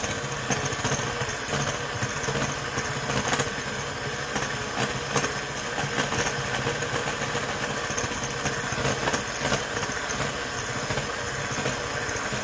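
Electric hand mixer running steadily, its beaters whirring through liquid cake batter as the dry cake mix is beaten in.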